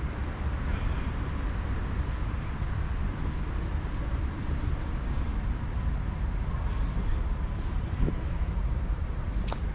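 Steady city road traffic noise, a continuous low rumble with no single vehicle standing out.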